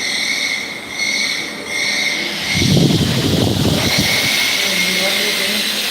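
CNC vertical machining centre milling metal: a high-pitched squealing whine from the cutter that comes and goes about once a second, then holds steady. About halfway through, a louder rough burst of noise lasts for about a second and a half.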